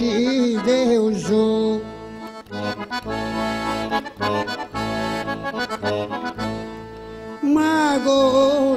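Accordion accompanying Sardinian arrepentina singing: a man's voice sings a gliding melodic line at the start, the accordion plays held chords over a pulsing bass as a short interlude, and the voice comes back in near the end.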